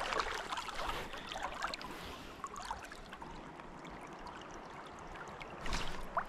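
Swollen trout stream running and gurgling around a wader standing in it, with small splashes and ticks throughout.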